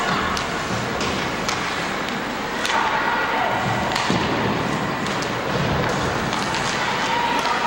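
Ice hockey play in a rink: sharp clacks and knocks from sticks, puck and boards, scattered irregularly, over a steady arena hiss with faint distant calls.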